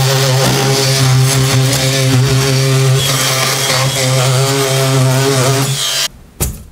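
Oscillating multi-tool running steadily with a strong hum as it cuts out a ceramic wall tile. It stops near the end, followed by a single knock.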